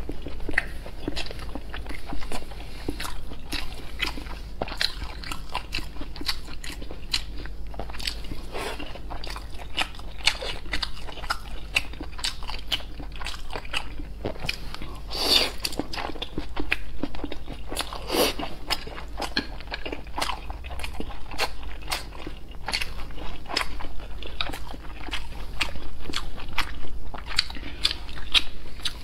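Close-miked eating sounds: biting and chewing a long strip of dark red food dipped in sauce, a dense run of small clicks and smacks, with two louder bites about fifteen and eighteen seconds in.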